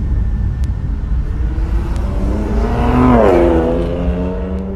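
Ford 289 V8 engine of a 1964½ Mustang running, with one rev about three seconds in: the pitch climbs, then falls back.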